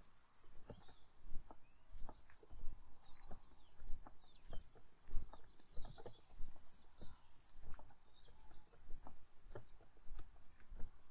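Footsteps on a path at an unhurried walking pace, about three steps every two seconds, with small birds chirping faintly in the background.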